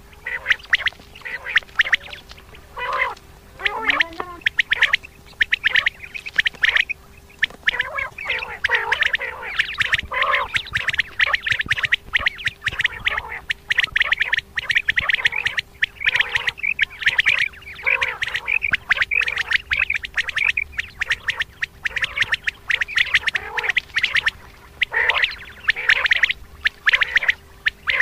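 Common quail calling: rapid, dense runs of short repeated call notes with brief pauses, over a faint steady hum.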